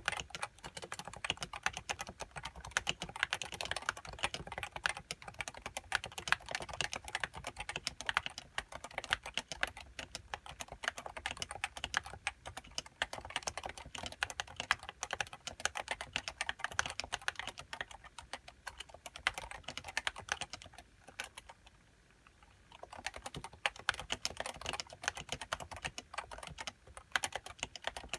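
Continuous fast typing on a Leopold FC660C keyboard with uniform 55 g Topre electrostatic capacitive switches and HiPro keycaps, a dense run of key clicks that pauses for about two seconds roughly three-quarters of the way through.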